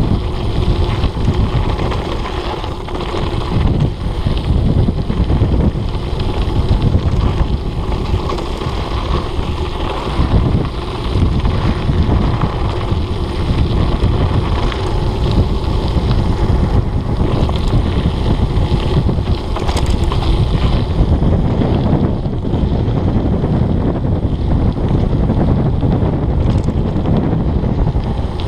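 Loud wind buffeting on the microphone over the rumble and clatter of a mountain bike's knobby tyres and frame on a fast dirt-and-gravel descent.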